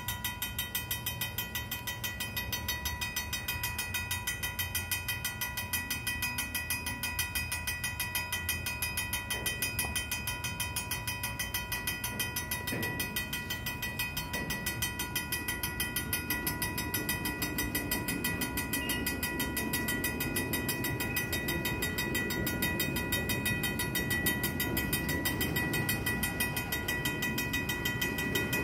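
Vintage mechanical railroad-crossing bell ringing fast and steadily. Underneath it, the rumble of freight cars on the track grows louder through the second half.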